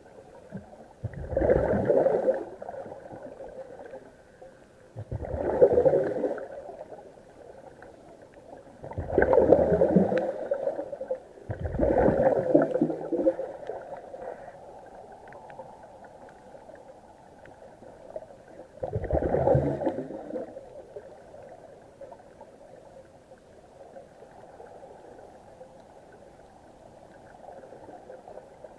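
Scuba divers' exhaled air bubbling out of their regulators, heard underwater: five bubbling bursts of about a second and a half each, several seconds apart with a longer pause near the end, over a faint steady hiss.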